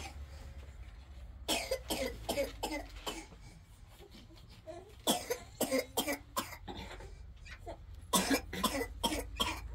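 A woman coughing hard in three fits, each a quick run of harsh coughs, the sign of a severe and worsening cough.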